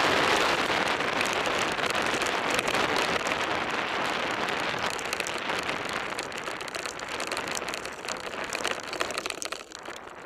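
Mountain bike rolling fast over a dirt and gravel trail: a dense, crackling crunch of tyres on stones with a rattle of small knocks from the bike, easing off near the end.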